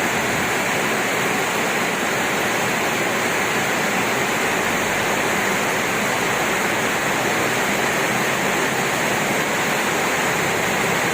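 Heavy tropical rain pouring down in a steady, unbroken downpour.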